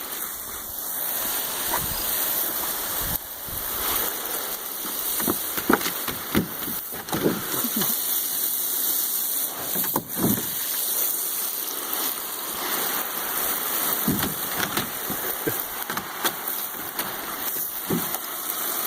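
Running water with a steady rushing hiss, broken by many short splashes.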